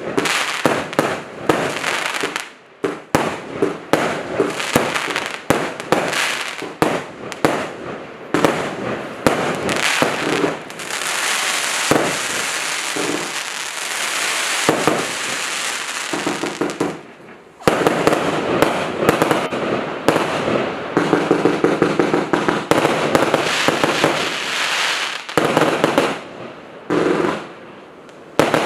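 A 230-shot consumer fireworks cake with 0.8- and 1-inch tubes firing in quick succession. It opens with a rapid run of launch thumps and bursts, then turns to long spells of dense crackling, broken by short lulls about 17 s and 27 s in.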